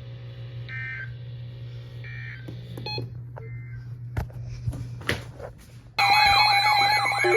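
Weather-radio broadcast over a steady hum: two short two-tone digital data bursts, the end-of-message signal closing the alert, then a few clicks. About six seconds in, a loud siren-like alarm of wavering, sweeping tones starts abruptly.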